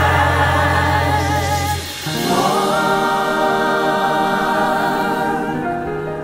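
Choir singing a song's closing held chords over accompaniment: a low bass note stops about two seconds in, and a new sustained chord follows and slowly fades.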